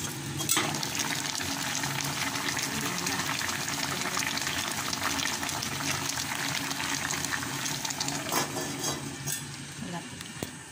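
Water boiling hard around bananas in a stainless steel pot on a gas stove: a steady bubbling hiss. The metal lid clinks as it is lifted off near the start and set back on near the end.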